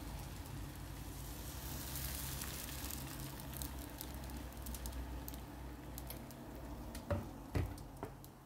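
Crepe batter sizzling in a hot frying pan as it is poured and swirled, over a low steady hum. Near the end come three sharp knocks.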